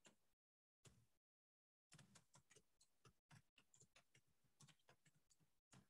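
Faint computer keyboard typing: soft, irregular key clicks several a second, starting after a moment of dead silence.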